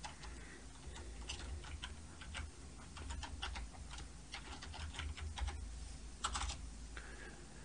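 Computer keyboard typing: irregular keystrokes as a filename is typed, over a faint low hum.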